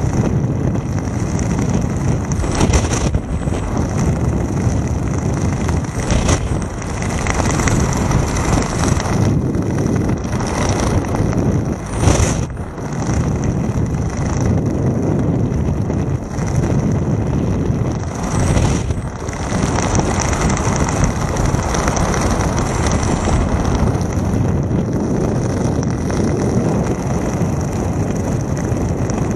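Airflow buffeting a camera microphone during flight under an open parachute canopy: a steady, loud wind rush with a few brief gusts.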